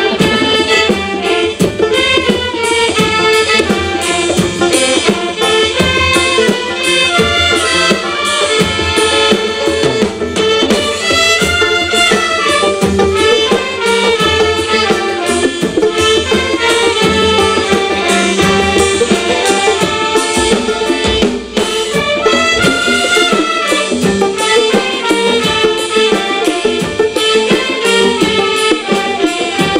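Band music with hand drums and horns playing a melody over a steady beat.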